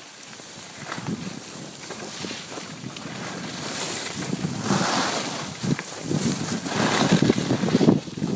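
Wind buffeting a phone microphone during a ski run downhill, with the hiss and scrape of skis turning on packed snow, growing louder through the second half.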